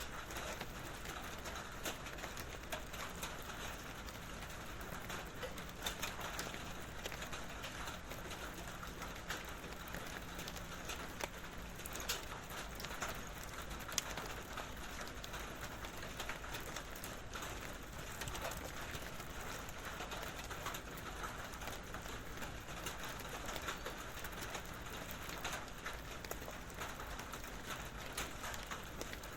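Steady rain pattering on a metal barrel: a dense run of small drop ticks with a hollow metallic ring, a few louder single drops standing out, and open outdoor ambience behind it.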